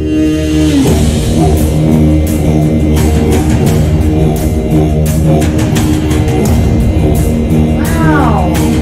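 Mongolian folk-metal playing: a steady heavy drum beat under sustained bowed-string and guitar notes, with a sliding note near the end.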